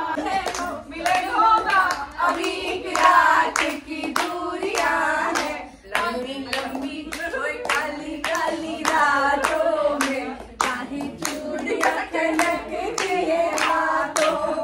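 Singing of a song, accompanied by hand clapping at a steady beat.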